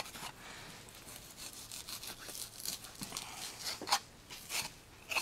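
Knife scraping and slicing partly frozen venison off a deer's shoulder blade: a faint steady rasp, with a few sharper strokes about four seconds in.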